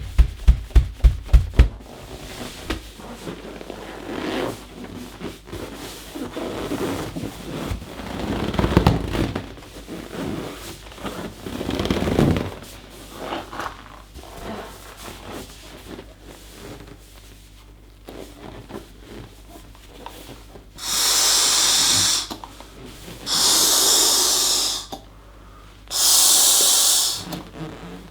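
Latex balloon being handled: a quick run of thumps at the start, then irregular rubbing and squeaks of the rubber. Near the end come four long breaths blown into the balloon to inflate it, each an airy rush about two seconds long.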